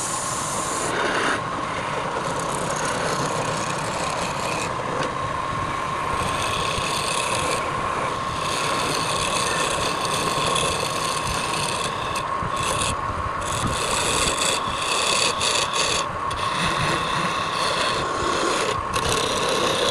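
Wood lathe running with a steady whine while a hand tool scrapes against the spinning wood, the scraping coming and going in uneven strokes.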